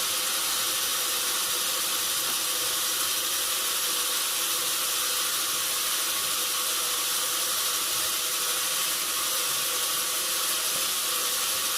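Steady, even hiss with a faint constant hum underneath, unchanging throughout, with no cutting strokes or knocks.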